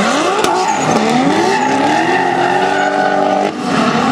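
Two drift cars' engines revving hard at high rpm, their pitch climbing steadily, with a short dip about three and a half seconds in as the revs drop momentarily. Behind the engines is the noise of rear tyres spinning and smoking sideways through the corner.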